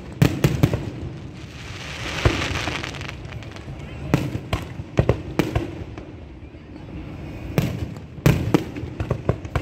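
Fireworks going off: clusters of sharp bangs and crackles, with a hiss about two seconds in.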